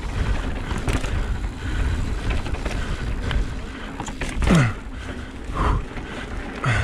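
Mountain bike running down a trail: tyre rumble and rattling clacks over rough ground, with wind buffeting the microphone. A short sound falls steeply in pitch about four and a half seconds in, and another near the end.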